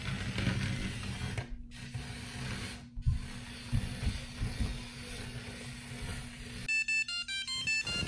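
Microduino Itty Bitty Buggy toy robot in its dodo-bird build, its small motors and plastic gears whirring and clicking as it drives and flaps its wings. Near the end, music of short plucked notes comes in.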